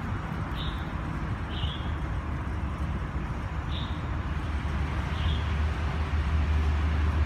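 Outdoor traffic noise: a steady low rumble, with a short high chirp every second or two.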